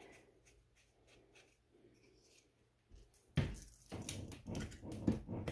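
Near silence for about three seconds, then a run of irregular knocks, clicks and rustling as hands handle the finished shower steamers and their molds on a work surface.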